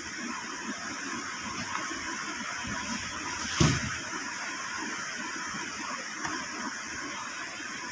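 Steady hissing background noise, with one brief thump about three and a half seconds in.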